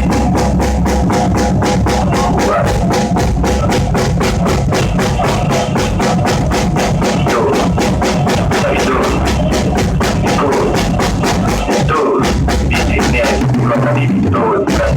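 Rock song with a drum kit played along to it: a fast, even beat of sharp cymbal and snare strokes over bass drum and a full band. The music thins out briefly near the end before the beat picks up again.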